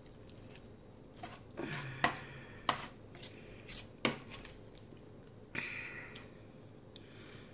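Metal spoon scraping and clinking against a disposable aluminium foil lasagna tray while scooping out a bite. There are a few sharp clinks between about two and four seconds in and a short scrape near six seconds.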